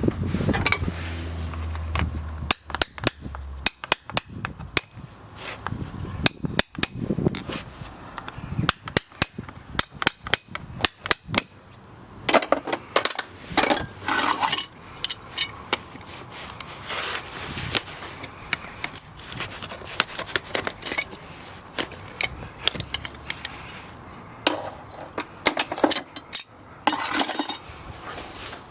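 Farrier's hand tools working on a horse's hoof: a long run of sharp, irregular metallic taps and clinks, several at a time with short pauses between.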